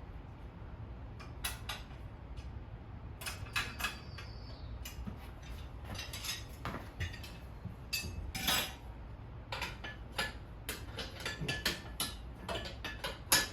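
Irregular metal clinks and knocks of steel tire irons against a dirt bike wheel rim while levering the tire bead onto the rim, some strikes ringing briefly.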